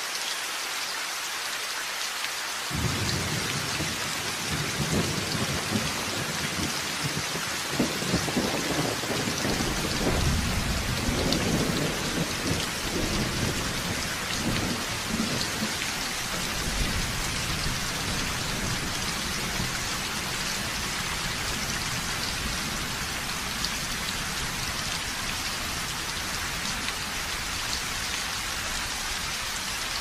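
Steady rain falling, with a long roll of thunder that comes in about three seconds in, swells through the middle and slowly fades away.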